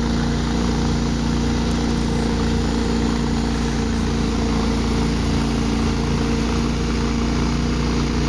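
An engine running steadily at a constant speed, with an even hum.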